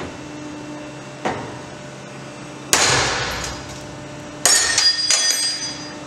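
Rock Exotica locking carabiner snapping under load on a break-test bed, failing at about 5470 lb: a faint click about a second in, then a loud sharp crack nearly three seconds in. About a second and a half later come two clattering metal impacts with ringing as the broken pieces fly, over a steady low hum.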